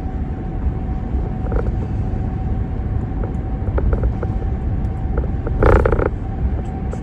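Road noise inside a moving car, a steady low rumble with scattered small creaks and clicks from the cabin, and one brief louder rattle or knock about six seconds in.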